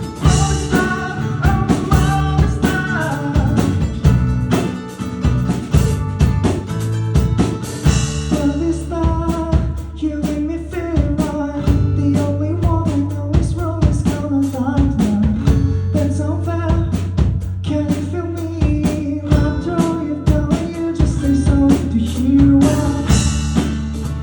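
A rock band playing, with drum kit, bass and guitar. A wavering melody line rises over it about eight seconds in.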